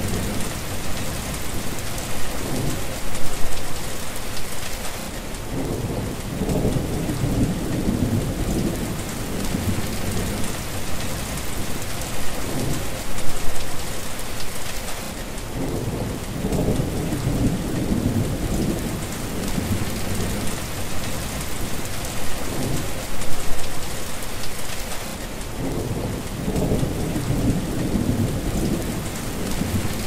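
Heavy rain pattering steadily on wet tarmac, with low rolls of thunder swelling and fading about every ten seconds.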